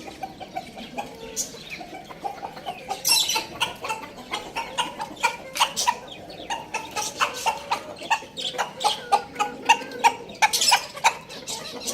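Chickens clucking while feeding, with many quick, sharp taps of beaks pecking at food.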